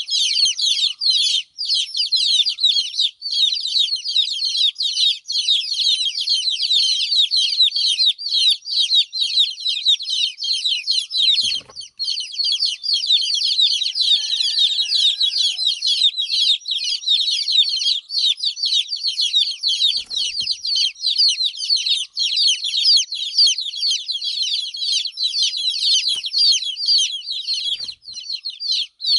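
A group of domestic chicken chicks peeping loudly and without pause, many high-pitched calls overlapping. These are the distress calls of chicks left without their mother hen.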